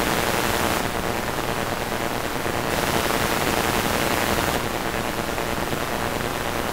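Steady, loud static hiss of a blank stretch of videotape playing back.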